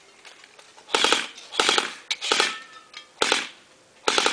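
Airsoft electric rifle (G&G GR16) firing five short bursts, each a quick rattle of shots, spaced under a second apart.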